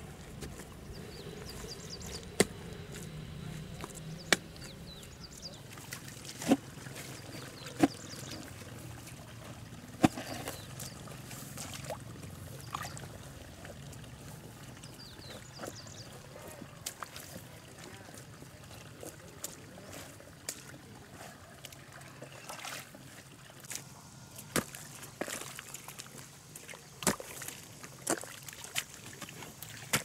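Irregular sharp knocks of a long-handled hoe chopping into damp soil, over a faint trickle and slosh of water.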